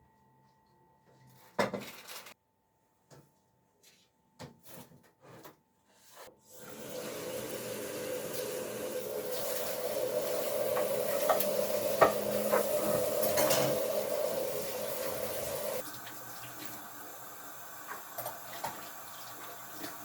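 A few knocks and clicks, then a tap running into a sink from about six seconds in, with occasional clinks of dishes. The flow gets quieter about three-quarters of the way through.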